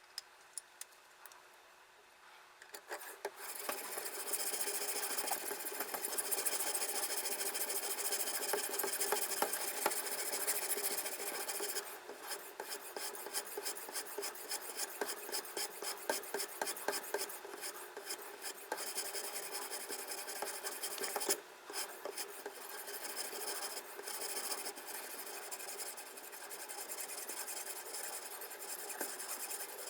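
Diamond sharpening bar on a guided knife sharpener scraping along the steel blade of a Victorinox folding knife in quick back-and-forth strokes, a steady rasping sound. It starts about three seconds in after a few light clicks, and breaks off briefly about two-thirds of the way through.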